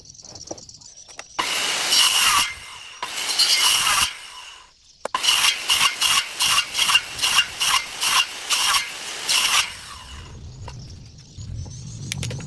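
Hand saw cutting wood: two long strokes, then after a short pause a quick, even run of short back-and-forth strokes, about three a second, that stops near the end.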